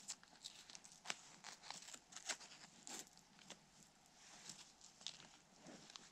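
Faint, irregular rustling and crinkling with sharp clicks as bikepacking bags and straps are handled on a loaded fat-tire bike.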